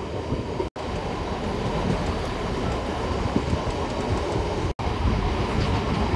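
MEMU electric multiple-unit train running along the line, heard from on board: a steady rumble of wheels on track.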